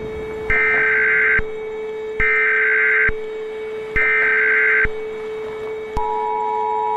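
Emergency Alert System SAME header: three bursts of screeching digital data tones, each just under a second long, about a second apart. About six seconds in, the steady two-tone EAS attention signal starts. A steady low hum runs underneath.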